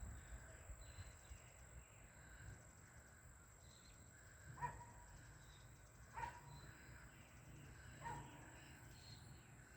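A bird gives three short, faint calls about a second and a half apart, over quiet outdoor background.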